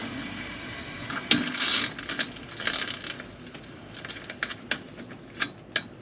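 Small metallic clicks and knocks as a brass central-heating drain-off valve with a hose on it is worked by hand, with two short bursts of hiss about a second and a half and three seconds in.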